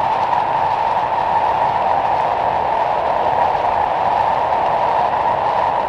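A steaming pot's steady hiss mixed with strong wind, as one continuous loud rush of noise with a band near the middle of the range.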